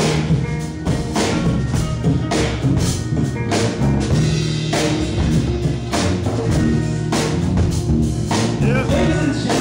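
Live jazz-funk band playing: electric bass line, keyboard and drum kit with regular cymbal and snare hits. Near the end a voice comes in over the band.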